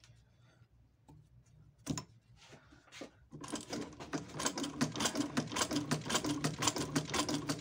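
Shoemaker's Adler industrial sewing machine starting up about three seconds in and stitching at a steady, rapid, even clatter: a test run on a scrap of material after repair. Before it starts there is some faint handling and one sharp knock.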